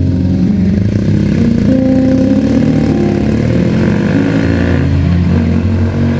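BMW R nineT Scrambler's air/oil-cooled boxer twin engine running, its revs rising and falling.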